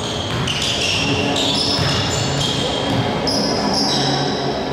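Basketball play in a gym: sneakers squeaking many times in short, high-pitched chirps on the court floor, over a steady echoing hall background, with the ball bouncing.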